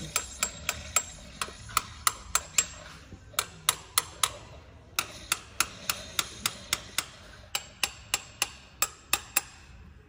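Ratchet wrench clicking in short runs of sharp clicks, a few a second, with brief pauses, as fasteners are worked loose during removal of a GM V8 high-pressure fuel pump.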